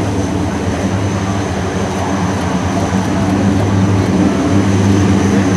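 Lockheed C-130J Hercules' four Rolls-Royce AE 2100 turboprops running on the ground with the ramp down for unloading: a steady low propeller drone with a thin high whine above it, growing a little louder near the end.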